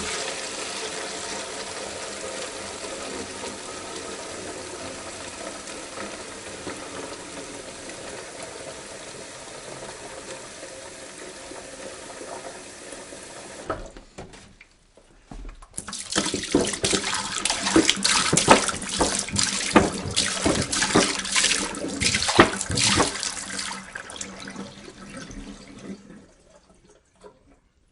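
Water poured from a jug: a steady stream for about fourteen seconds, then after a short break a second, louder pour full of splashing and spattering that fades out near the end.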